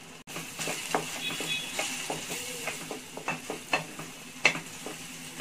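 Onion-tomato masala sizzling in oil in a stainless-steel pan while a wooden spatula stirs it, scraping and knocking against the pan two or three times a second. The sharpest knock comes about four and a half seconds in.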